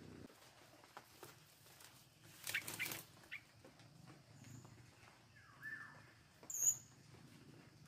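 Faint rustling and knocks of hands working a stick bird trap among the plants, with a few short high bird chirps and one falling call about five and a half seconds in.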